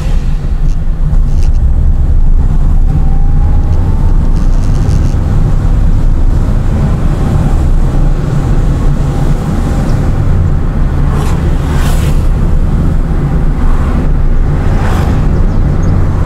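Car on the move: a steady, loud low rumble of engine and road noise.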